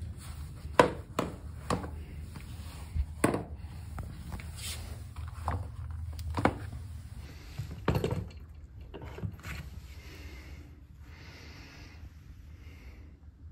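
Handling sounds of luggage and shoes: about eight sharp knocks and clicks spread over the first eight seconds as a suitcase is handled and a pair of shoes is set down on a laminate floor, over a low room hum. It is quieter in the last few seconds.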